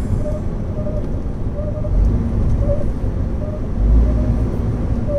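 Engine and road noise heard from inside a moving truck's cab: a steady low rumble that swells twice, about two and four seconds in.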